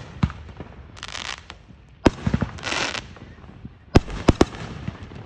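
Fireworks going off: sharp bangs a second or two apart, with a quick cluster of three about four seconds in, and bursts of crackling hiss after some of them.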